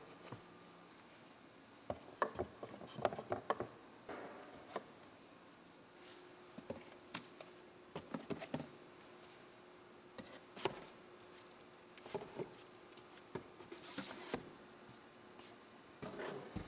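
Plastic gallon glue jugs being set down and shuffled in a plywood bin, making scattered light knocks and clunks. Near the end there are heavier clunks as a plastic tool case goes into a plywood compartment.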